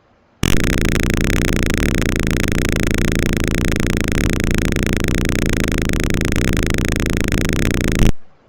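Simulated piezo buzzer in a Tinkercad Arduino circuit sounding a loud, harsh buzz. It switches on abruptly about half a second in and cuts off near the end. It sounds because the ultrasonic distance sensor is reading 20 cm or less.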